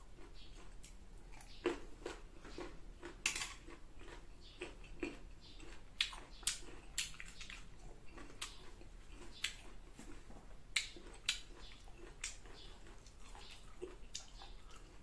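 A person chewing crisp green mango close to the microphone: irregular crunches and wet mouth clicks.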